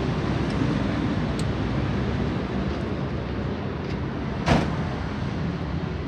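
Steady background traffic noise, with one sharp knock about four and a half seconds in.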